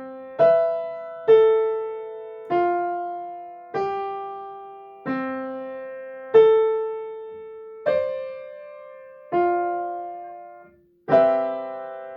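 Piano playing a slow bell-like melody of single notes, each struck and left to ring and fade, about one note every second and a half. After a brief break it ends on a chord near the end that keeps ringing.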